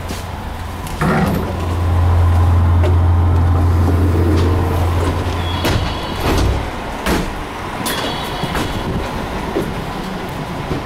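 Inside a stopped JR West 221 series electric train: a loud, steady low hum from the car's equipment starts suddenly about a second in and stops a little past halfway. Scattered clicks and knocks sound over it.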